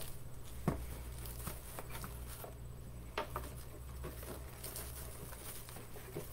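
Faint handling noises of items being moved about on a counter, with a couple of light knocks, over a steady low hum.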